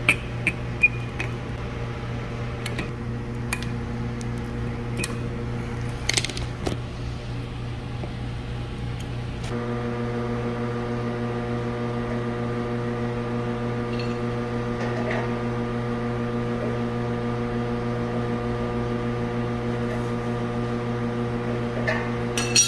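Side cutters snipping the leads of a new condenser fan motor: a few sharp clicks in the first several seconds. Under them runs a steady low hum of running machinery that gets louder about ten seconds in. A metallic clatter comes near the end as the fan blade goes onto the shaft.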